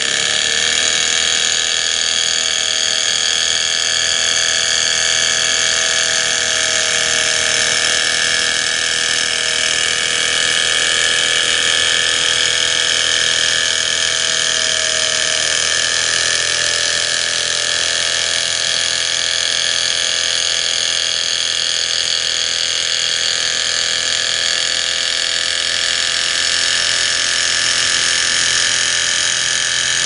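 Flame-heated model Stirling engine running steadily, a continuous mechanical whir made of several high steady tones. A couple of lower tones waver slightly in pitch through the first half.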